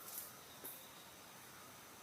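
Near silence: faint hiss of background ambience, with two soft ticks in the first second.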